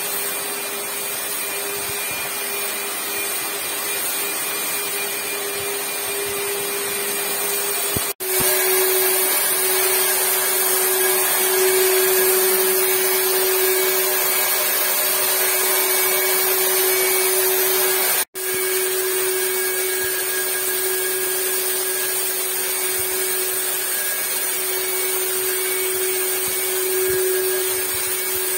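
Corded handheld electric ULV fogger spraying disinfectant, its motor running steadily with a hum and a high hiss of air and mist. It breaks off for an instant twice.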